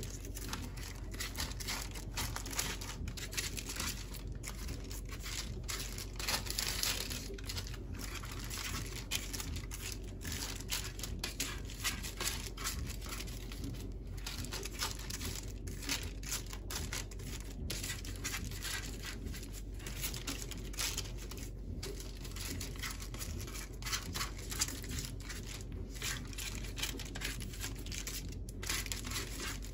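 Baking paper rustling and crinkling under hands pressing and shaping a ring of soft dough on a baking tray, in small irregular rustles.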